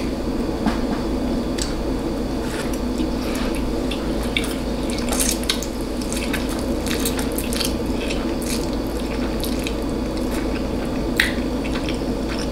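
Close-miked wet chewing of spicy noodles: many soft smacking and clicking mouth sounds over a steady background hum.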